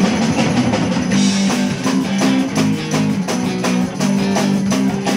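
Live band playing amplified guitars over a drum kit, held low notes stepping under a steady beat.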